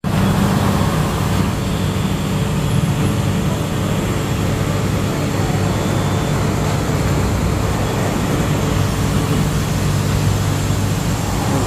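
Steady machine hum and rumble of a self-service laundromat, with its coin-operated washers and dryers running.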